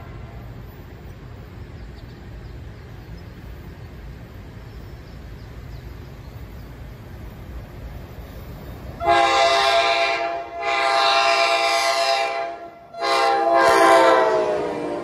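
NJ Transit ALP-46A electric locomotive's horn sounding the grade-crossing signal, long, long, short, long, starting about nine seconds in. The last blast falls in pitch as the locomotive nears. Before the horn there is a low rumble.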